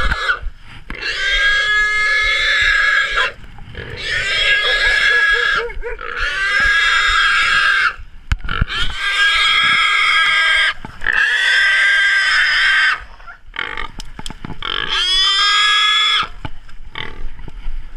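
A hog squealing loudly in about six long, high-pitched squeals of roughly two seconds each, with short breaks between them.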